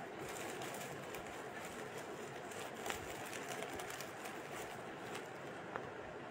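Quiet, steady background noise with a couple of faint clicks.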